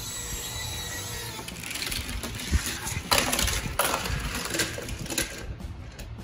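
Die-cast toy cars rolling and rattling down the plastic ramps of a Hot Wheels garage playset, with a louder clatter about three seconds in.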